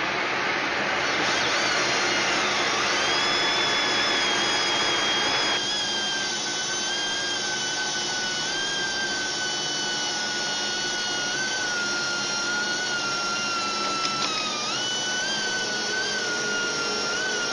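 Metal lathe running while a large M45 tap cuts an internal thread. A steady cutting hiss sits over a high whine; the hiss drops away about five seconds in, and the whine carries on, wavering a little in pitch.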